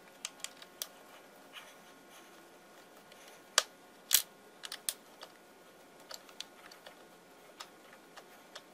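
Scattered small clicks and taps of hands handling wires and plastic parts inside an opened electric pressure washer, with two louder clicks about three and a half and four seconds in.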